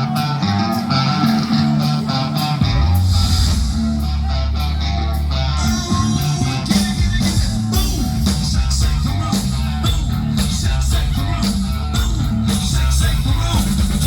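Live rock band playing: electric guitar with drums, and the bass coming in heavily about two and a half seconds in.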